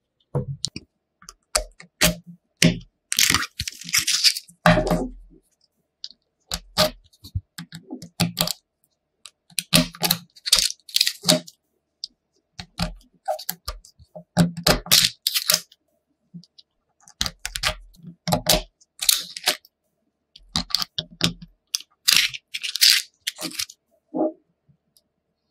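Small neodymium magnet balls clicking and rattling against each other as a block of them is squeezed and shaped by hand and pressed between cards, in irregular bursts of clicks with short scraping sounds.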